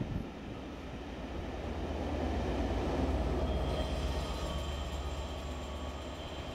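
Class 67 diesel locomotive working hard as a banking engine on a climb, its EMD two-stroke V12 giving a steady heavy drone that swells as it approaches, with the rumble of passenger coaches rolling past. A high whine joins about halfway through.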